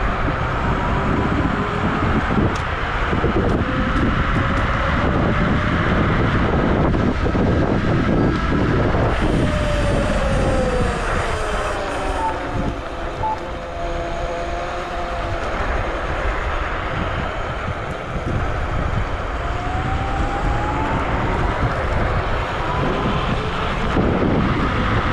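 Wolf Warrior electric scooter riding at speed: wind rumbles on the chest-mounted microphone over steady road noise from the tyres. The whine of its dual 1200 W motors falls in pitch about ten seconds in as the scooter slows, then rises again near the end as it speeds back up.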